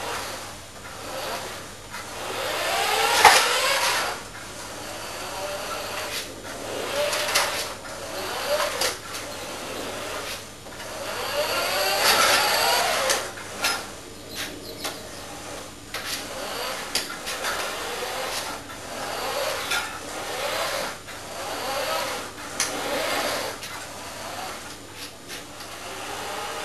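Drawing tool scratching and rubbing across paper in repeated strokes, some strokes giving a short squeak that rises and falls in pitch.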